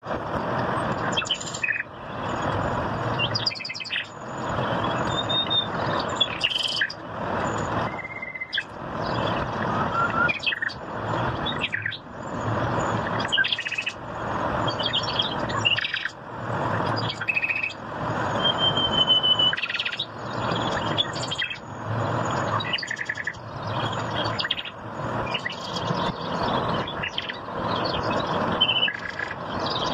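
Small birds chirping and tweeting in short, scattered calls, over a rushing noise that swells and drops away about every two seconds.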